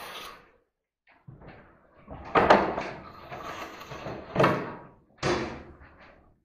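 Sharpened steel trowel scraping along glued fiberglass canvas on a drywall window reveal, trimming off a strip: a faint stroke, then three louder scraping strokes, the loudest about two and a half seconds in.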